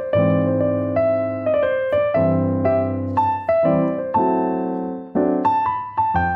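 Background piano music: a melody of single struck notes over sustained low chords, each note sounding and dying away, at a gentle, moderate pace.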